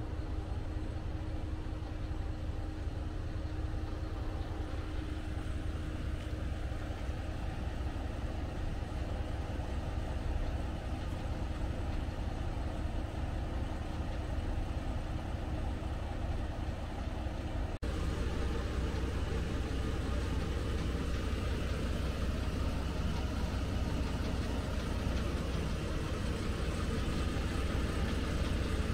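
Diesel railcar heard from inside the passenger cabin: a steady low engine hum with running noise. About two-thirds through the sound changes abruptly and the low hum becomes stronger.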